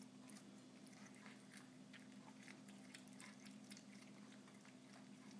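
Faint, irregular clicks and smacks of two cats chewing raw lamb food, over a low steady hum.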